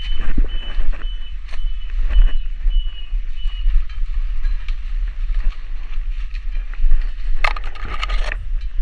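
Footsteps and rustling of leaves and branches as a hiker pushes through dense rainforest undergrowth, over a steady low rumble on the action camera's microphone, with a louder rustle of brush near the end. A high call pulses about twice a second in the background for the first few seconds, then stops.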